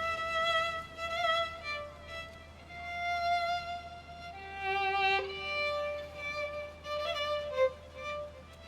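Solo violin playing a slow, mournful melody of long held notes with vibrato.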